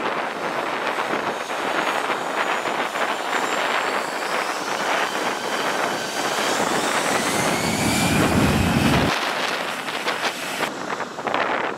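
Airbus A320-214's CFM56 jet engines running as the airliner turns on the runway, with a thin whine that rises in pitch, under heavy wind noise on the microphone. A low rumble builds about seven seconds in and cuts off suddenly about two seconds later.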